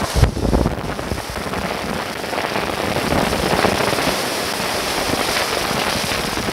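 Ocean surf breaking on rocks and foam washing in: a steady rushing, crackling noise, with a few low thumps about half a second in.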